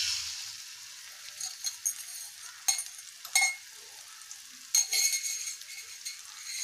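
Beaten egg sizzling as it is poured into hot oil and masala in an aluminium kadai, a steady frying hiss. Several sharp metal clinks of steel utensils against the tumbler and pan come between about two and a half and five seconds in.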